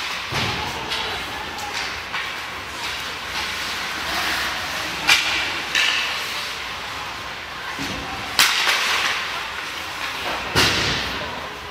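Ice hockey play in a rink: a steady scraping hiss of skates on the ice, broken by four sharp knocks of hockey sticks and puck, the loudest a little past the middle.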